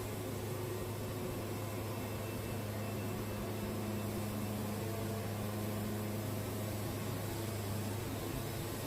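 Wood-Mizer portable sawmill running steadily, its engine keeping up a constant low hum with a faint whine over it.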